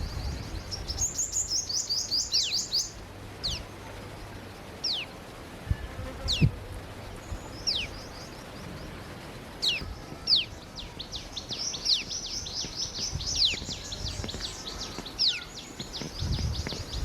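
Several birds chirping: fast, high twittering trills, and sharp falling whistled notes repeated every second or two.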